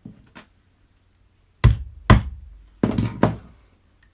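Rubber mallet striking a single-prong leather punch four times, in two pairs, to drive a hole through a leather strap. Two light taps come first as the prong is set in place.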